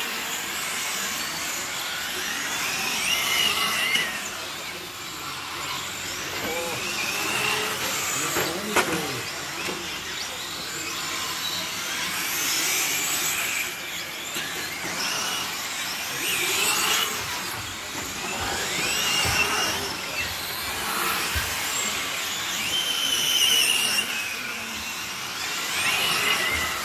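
Electric 1:8-scale RC GT cars racing past, their motors whining high and rising and falling in pitch as they accelerate and brake, over a hiss of tyres on wet asphalt. The sound swells and fades every few seconds as cars pass.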